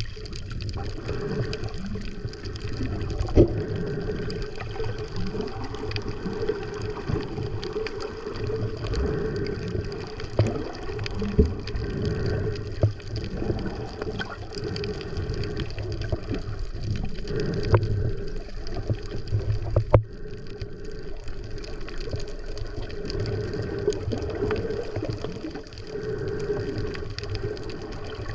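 Water sloshing and gurgling against the camera, with a low, muffled churn and a few sharp knocks scattered through it.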